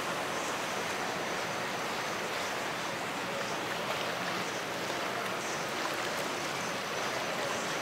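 Steady rushing wash of water and wind, an even hiss with no distinct engine note or other events.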